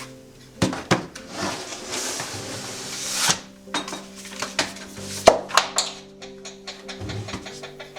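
Kitchen work noises: irregular knocks and clatter of dishes and utensils, with a scraping or rustling swell in the first half and the sharpest knock about five seconds in, over soft background music.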